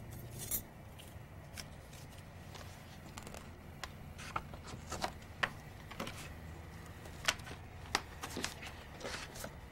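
Faint, irregular clicks and taps of small objects being handled, over a low steady hum.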